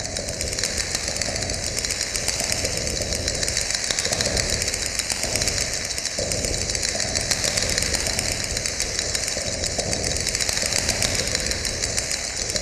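Steady mechanical whirring with a fast, even flutter.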